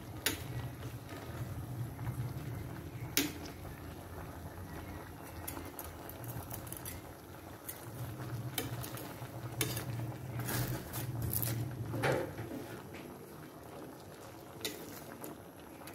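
Ginataang papaya, a coconut-milk stew, simmering and bubbling in a pot over a low hum, with a few sharp clinks of a utensil against the pot.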